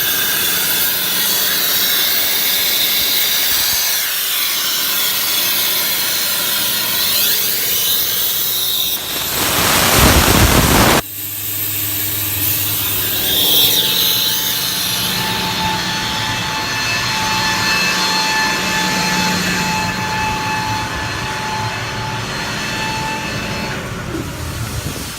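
VMAX hydraulic-driven air compressor running while compressed air hisses out of an open air hose. About nine seconds in, a louder two-second rush of air cuts off suddenly. After that, a lower, steady running sound remains, with a thin steady tone.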